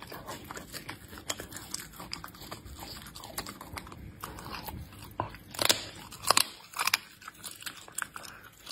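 Leopard cub eating raw meat from a dish, chewing and licking, with a steady run of small clicks and three louder bites a little past halfway.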